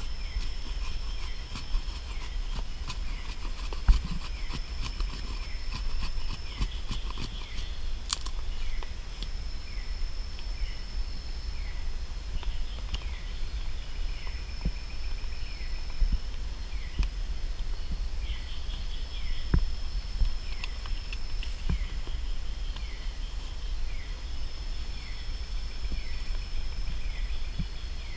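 Tropical forest night chorus: a steady high insect drone, with a short falling chirp repeating about every two-thirds of a second. Occasional sharp knocks and rustles from knife work on a stick and handling of dry grass close by.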